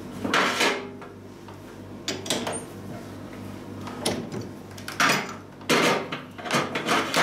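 Metal parts and tools being handled on a workshop bench: about half a dozen separate knocks, clatters and short scrapes, over a steady low hum.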